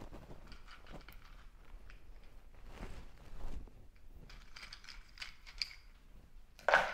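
Faint kitchen handling noises: scattered soft knocks, clinks and rustling as ingredients and containers are moved about, with one short louder noise near the end.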